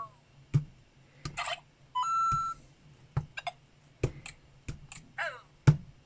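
LEGO Luigi interactive figure's speaker playing short electronic beeps, a steady high beep and a falling chirp, among sharp clicks.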